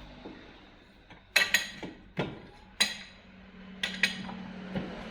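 Sharp metal-on-metal clinks: about six irregular strikes, some in quick pairs, each with a short ring, over a faint low steady hum.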